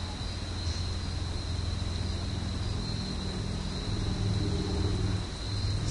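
Low steady rumble and hum with an even hiss, swelling slightly about four seconds in, under a faint steady high-pitched whine.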